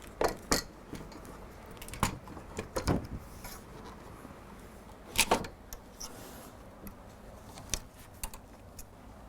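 Scattered metallic clicks and knocks of a multi-point door lock being handled and slid back into the door edge, with a few louder knocks about two, three and five seconds in.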